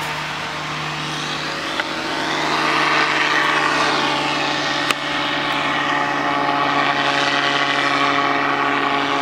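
Powered parachute's engine and caged pusher propeller droning steadily as it flies overhead, growing louder about two to three seconds in as it comes closer. There is one sharp click near five seconds in.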